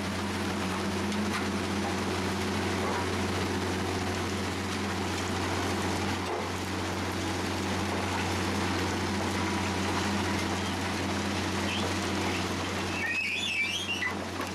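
Diesel engine of a Matisa R 21 track machine running steadily with a low hum, over a continuous noise of ballast being worked as the machine moves along the track. A few short high chirps come near the end.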